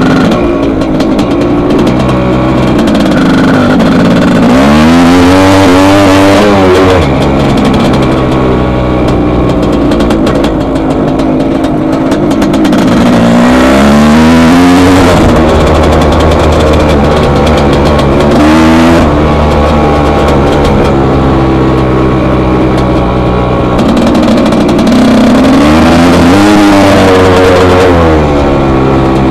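1981 Husqvarna 430CR two-stroke single-cylinder motocross engine under way, revving up hard and easing off through the gears, with four strong rising runs. The engine has a rejetted carburettor, a new piston and a repacked muffler.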